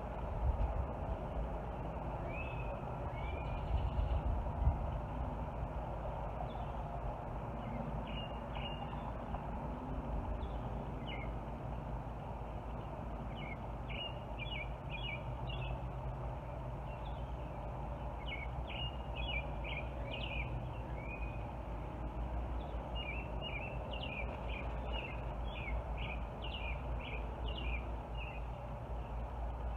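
Birds chirping in quick short runs over a steady low outdoor rumble, with a couple of soft bumps in the first few seconds.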